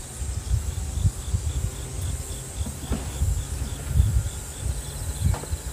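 An insect chirping in an even rhythm, about four high chirps a second, over a steady high buzz, with a low, uneven rumble of wind on the microphone underneath.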